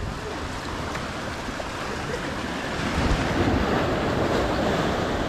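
Ocean surf washing and breaking over rocks close by, a steady wash that grows louder about three seconds in as a wave comes in.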